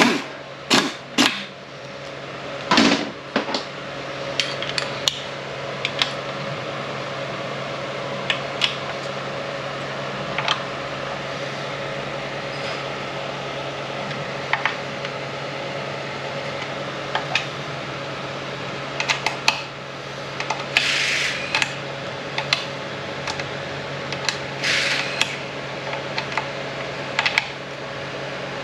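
Hand tools and metal parts of a Ford 10R140 transmission clinking and tapping at irregular moments during bench assembly, with two short rasping bursts in the second half. A steady hum runs under it.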